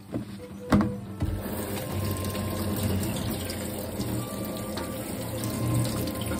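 Kitchen tap water running over a bunch of komatsuna being rinsed by hand in a stainless steel sink. A sharp knock comes just before the flow picks up about a second in, and the running water then stays steady. Background music plays under it.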